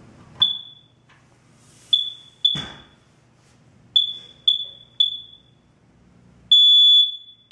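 Combination smoke and carbon monoxide detector being test-activated: six short high chirps, then near the end its loud alarm tone starts sounding in long beeps about a second each. It gives only beeps and no spoken warning, so it fails inspection, since combination units must speak to tell a smoke activation from a carbon monoxide activation.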